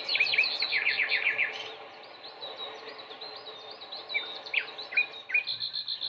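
Small birds chirping and trilling: a fast run of repeated high chirps for the first second or so, then scattered downward-sliding calls, over a steady background hum.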